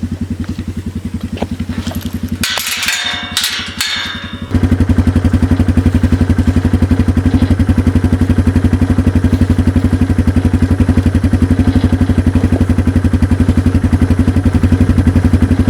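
Small engine of a farm vehicle running steadily with an even pulsing beat. For about two seconds, starting a couple of seconds in, the engine drops back under clattering and rattling, then comes back louder and steady.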